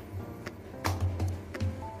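Soft background music with steady held notes, and a couple of light taps about half a second and just under a second in.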